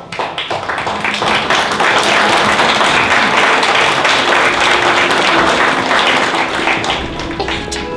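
Theatre audience applauding. The clapping builds over the first second or so and eases off near the end.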